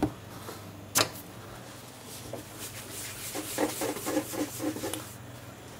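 Hands working brioche dough on a wooden worktop: two sharp knocks about a second apart, then soft rubbing and handling as the filled dough balls are closed and turned.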